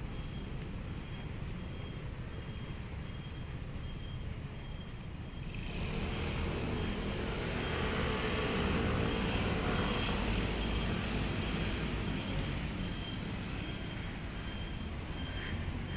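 Road traffic on the adjacent street: a steady low rumble, with a passing vehicle swelling from about six seconds in, loudest around nine seconds, then fading away.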